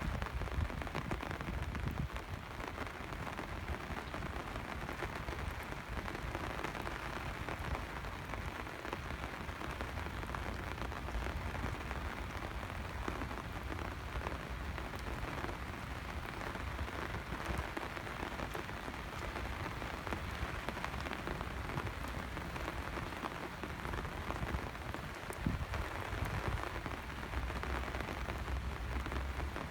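Steady rain falling on hard surfaces, a continuous even hiss with a low rumble underneath.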